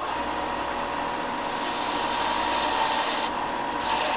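A 4 in x 36 in benchtop belt sander runs with a steady motor whine. A wooden mould block filled with cured super glue and baking soda is pressed onto the belt: a louder gritty sanding hiss from about a second and a half in, easing off briefly and coming back near the end.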